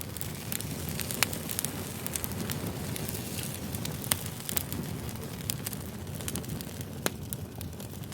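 Wood campfire burning: a steady low rumble of flames with irregular sharp crackles and pops, a few louder snaps about a second in, near the middle and near the end.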